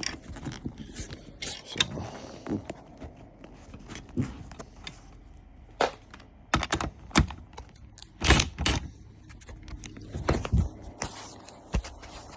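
Irregular metallic clicks and knocks as a steel seat bracket is slid and worked into place on a car seat's frame, with the loudest cluster of knocks about eight seconds in.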